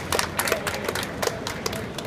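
A small audience clapping, the applause thinning out toward the end.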